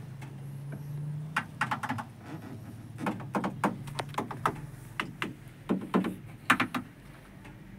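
Irregular clusters of quick, sharp clicks and knocks: handling noise in the truck cab. A low steady hum fades out about two seconds in.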